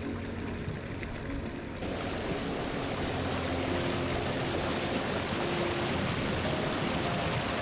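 Rushing water of a mountain stream: a steady noise that gets louder after a cut about two seconds in.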